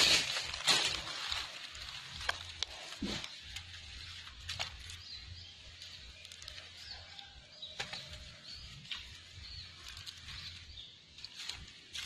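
Dry leaf litter rustling and crackling as hands dig through it and into the soil, with scattered small snaps and clicks; loudest in the first second.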